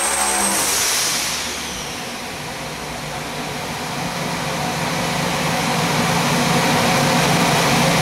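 Twin-turbo 525-cubic-inch 481X big-block V8 on an engine dyno coming off the end of a boosted pull. About half a second in, the engine lets off and the high turbo whistle fades and drops in pitch. The engine settles back to a steady idle.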